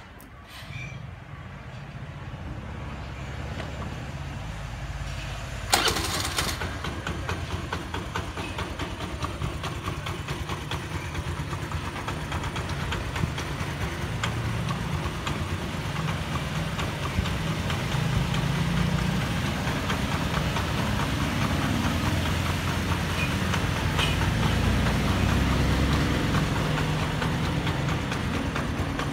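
Honda Activa scooter's single-cylinder four-stroke engine catching about half a second in, then idling steadily, growing slowly louder. A short loud rush of noise breaks in near six seconds.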